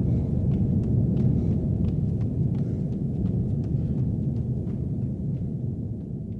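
Deep, steady rumble with faint scattered crackles, beginning to die away near the end, from the video's added soundtrack.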